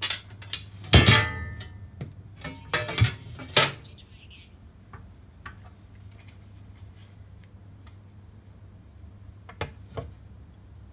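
Metal parts of a Scott Bonnar Model 45 cylinder mower clanking and knocking against each other and the bench as the side plate and top deck are lifted off. The loudest clang comes about a second in and rings briefly, and there are two lighter knocks near the end.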